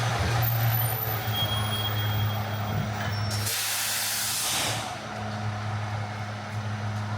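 A heavy vehicle's engine idles with a low hum. About three and a half seconds in, its air brakes release in a sharp burst of hiss lasting about a second and a half.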